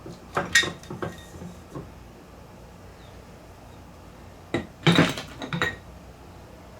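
Steel transmission parts and tools clinking and clattering as they are handled during a manual gearbox teardown. There are two clusters of metallic knocks with brief ringing, one at the start and another about five seconds in.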